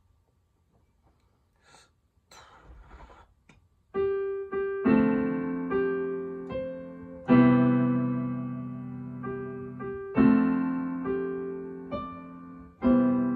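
Piano chords played slowly. The first few seconds hold only faint rustling, then a chord is struck about every one to three seconds, each one ringing on and fading.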